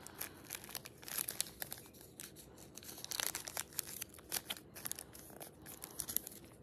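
Paper candy-bar wrapper crinkling and crackling as it is peeled back by hand, in many quick, irregular crackles.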